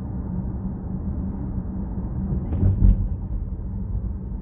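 Steady road and engine rumble inside a moving car's cabin, with a low hum. A little past halfway through come two brief thumps close together.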